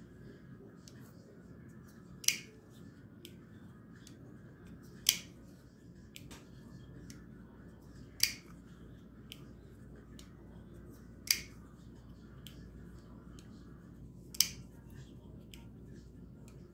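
Buck Reactor 702 folding knife being opened and closed over and over: five sharp snaps about three seconds apart as the blade swings out and locks, with fainter clicks between as it is closed. Its pivot runs on nylon washers.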